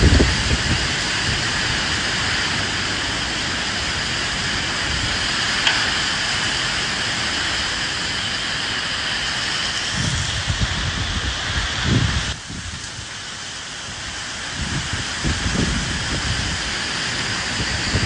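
Steady rain falling, with gusts of wind rumbling low now and then. About two-thirds of the way through, the rain suddenly turns quieter and thinner, then builds back up.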